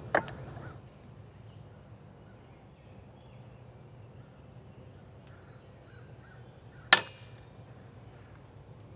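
A 3D-printed PETG-CF connection under twisting load from a torque wrench snaps with one sharp, loud crack about seven seconds in, as the printed part fractures.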